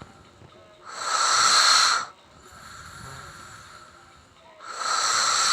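A sleeping person snoring into a close microphone, in a slow breathing cycle: a quieter low rasping snore alternates with a loud hissing breath about a second long, which comes twice.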